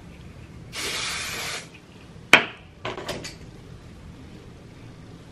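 A spray bottle gives one hissing spray of about a second, followed by a sharp click and a few lighter taps.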